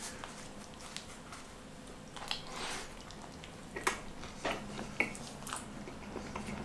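Chewing a bite of toasted grilled sandwich, with scattered short crunches and crackles.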